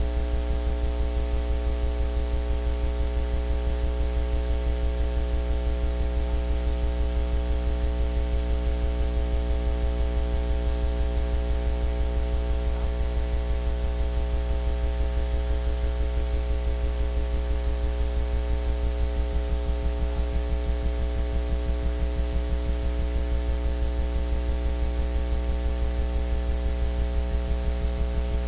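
Steady electrical mains hum, a low buzz with a fast, even pulsing in level, with no other sound coming through.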